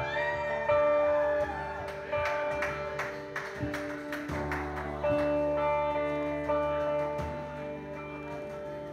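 Live band playing: electric guitar holding long notes over a steady bass line, with drums struck with sticks.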